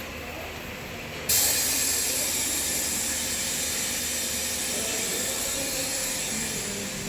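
Drum-washing machine running, with its water spray switching on suddenly about a second in and going on as a steady hiss.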